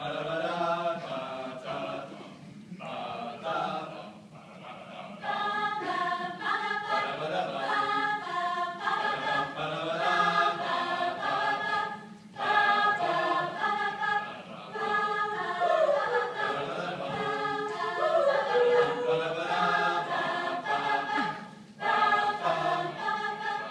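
Mixed-voice a cappella group singing, voices only with no instruments. It starts thin and soft, then grows fuller and louder about five seconds in.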